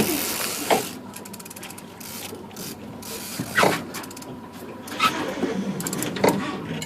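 Fishing reel being cranked while bringing in a salmon, its gears and ratchet giving runs of rapid fine clicks, with a few louder knocks.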